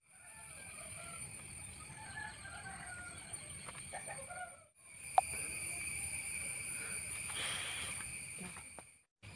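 Chickens clucking in short scattered calls over a steady high-pitched drone, with one sharp knock about five seconds in. The sound cuts out briefly about halfway through and again near the end.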